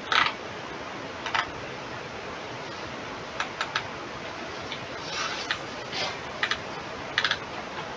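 Scattered short clicks from a computer mouse being clicked and scrolled, some single and some in quick pairs, over a steady background hiss.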